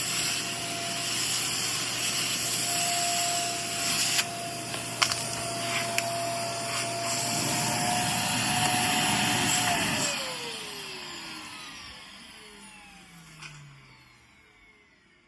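Vacuum cleaner motor running with a steady whine and a rushing of air, with a few sharp clicks around the middle. About ten seconds in it is switched off: the whine falls in pitch as the motor spins down and fades away.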